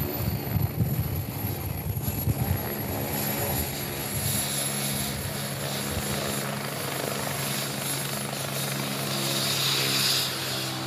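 Helicopter on the ground with its rotor turning, a steady low rotor hum with a faint high whine slowly falling in pitch. Gusts of wind on the microphone during the first couple of seconds.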